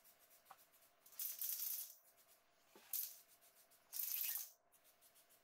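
Paint marker tip scraping on the metal of a turbo's turbine housing as it outlines the wastegate hole to be enlarged: three short, faint scratchy strokes, the longest about a second in, the last near the end.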